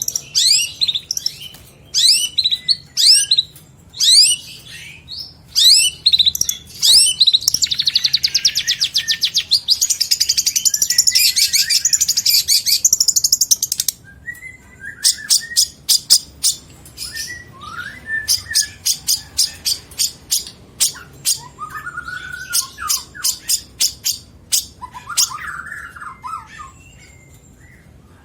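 Long-tailed shrike (cendet) singing a varied song packed with mimicked notes: first a series of sharp, downward-sweeping whistled notes, then a long, fast, buzzy trill, and after that rapid runs of sharp ticking notes interspersed with lower, harsher phrases.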